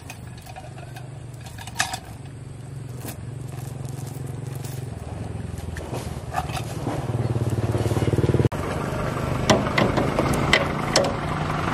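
A motor vehicle's engine running steadily and growing louder. Metal clinks and rattles from a steel tow chain are heard over it, more often near the end as the chain is hooked around the truck's frame.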